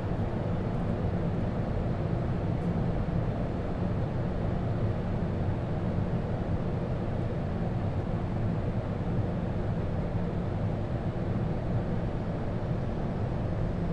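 Steady noise on an airliner's flight deck during final approach: an even rush of airflow with a low engine hum, the landing gear extended and flap 3 set.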